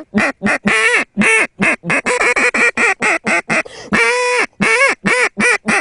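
Duck call blown by mouth in a comeback call: a fast, hard run of short quacks, with one longer drawn-out quack about four seconds in, the calling used to turn back ducks that are flying away.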